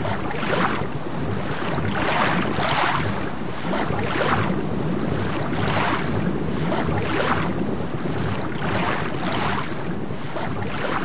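Rushing water noise that swells and ebbs in repeated soft surges, about one every three-quarters of a second.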